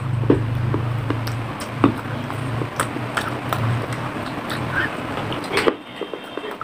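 Close-miked crunching of dry, unglazed fired clay being bitten and chewed: sharp irregular crunches every half second to second, over a low steady hum that stops shortly before the end.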